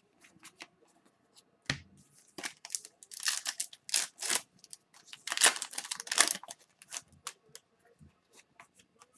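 Foil wrapper of a retail hockey card pack being torn open and crinkled, in a run of short rips and rustles that are loudest in the middle. A single sharp tap comes just under two seconds in.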